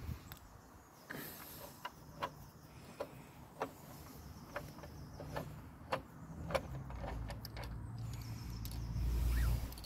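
Irregular metallic clicks and taps of a tubular box spanner working the front mudguard's mounting bolt on a motorcycle fork leg, about a dozen in all. A low rumble builds through the second half.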